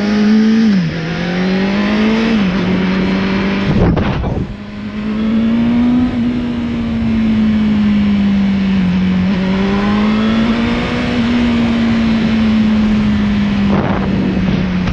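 Motorcycle engine and exhaust under way, its exhaust leak freshly spot-welded. The pitch climbs and drops back twice in the first few seconds as it shifts up, then holds fairly steady at cruising speed. A short burst of noise comes about four seconds in and again near the end.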